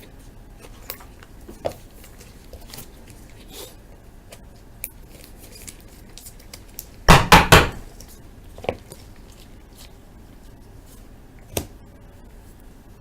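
Trading cards and their plastic packaging being handled on a table: scattered light clicks, taps and rustles. A brief loud noise comes about seven seconds in.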